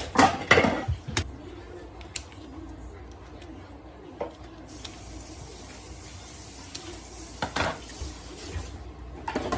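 Kitchen handling sounds: utensils and dishes clinking and knocking in scattered strokes, with a steady hiss coming in about halfway through.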